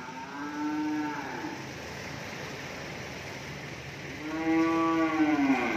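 Cattle mooing twice: a short call at the start, then a longer, louder one near the end, each rising and then falling in pitch.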